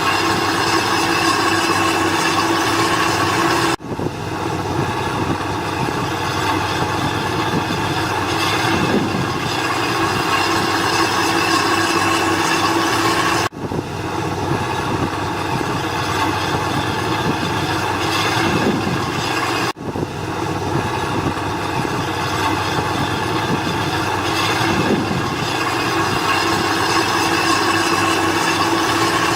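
Heavy diesel earthmoving machinery running steadily, with a constant mechanical drone and whine. The sound drops out for an instant three times.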